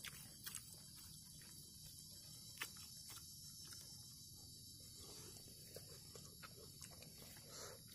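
Near silence: a faint, steady high insect drone, with a few small scattered clicks.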